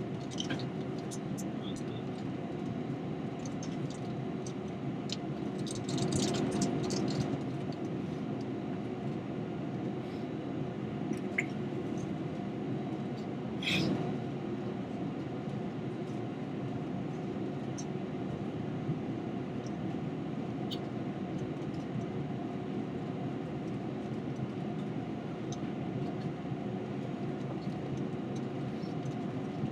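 Steady cabin drone of an Airbus A321 taxiing, its engines and air-conditioning making an even hum with a steady pitched tone. A brief rattle comes about six seconds in and a sharp click about halfway through.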